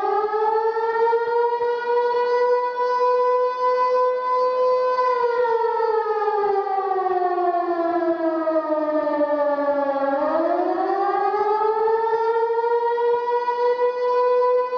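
Siren wailing: a steady tone that sinks slowly to about half its pitch over five seconds from about a third of the way in, then climbs back quickly and holds again.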